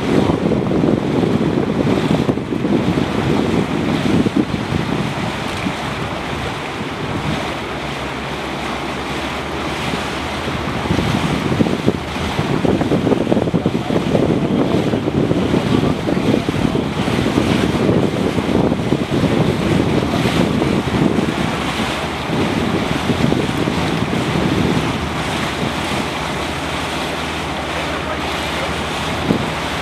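Wind buffeting the microphone over the rush of water from a boat moving through calm water: a steady, noisy wash with a faint low hum that comes and goes.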